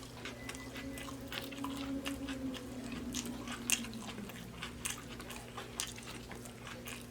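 Close-up chewing and biting of food, with frequent wet mouth clicks and lip smacking. A steady low hum runs underneath.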